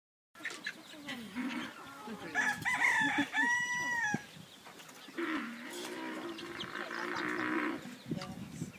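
Animal calls: a loud pitched call that rises and then holds level for about two seconds, ending just after four seconds in, followed by a lower, drawn-out call lasting about two and a half seconds.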